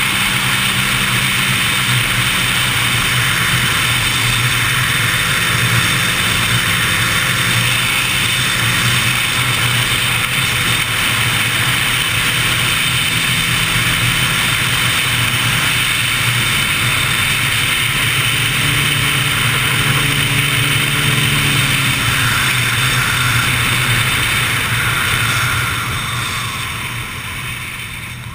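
Motorcycle at speed on the open road: loud wind rush over the camera, with the engine running steadily underneath. The sound dies down near the end.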